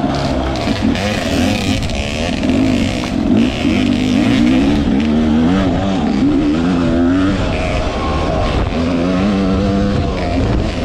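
Off-road dirt bike engine running under load, its pitch rising and falling over and over as the throttle is worked on a trail.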